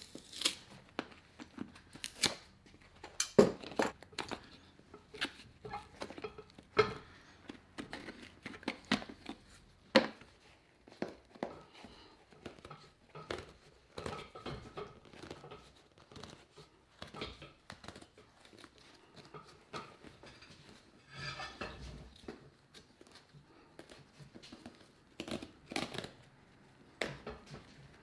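Hand tools working on leather boots: irregular clicks and knocks, with a longer noisy stretch of about a second some three-quarters of the way through.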